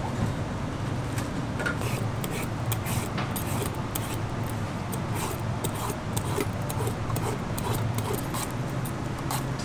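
Metal peeler scraping the skin off a green-skinned pumpkin in quick, uneven strokes, over a steady low hum.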